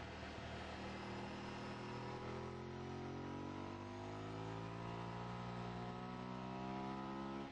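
Sport motorcycle engine heard from on board, running steadily and then rising smoothly in pitch as the bike accelerates, with a sudden drop in pitch at the very end, as at an upshift. Wind rushing over the bike lies under the engine note.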